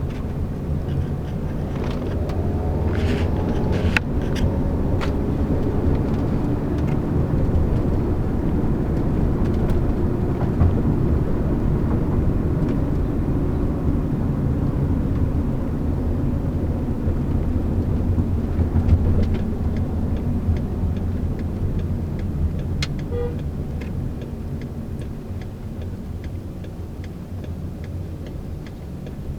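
Car driving, with steady engine and road rumble heard from inside the cabin. A few sharp clicks come in the first few seconds, and the rumble eases a little near the end.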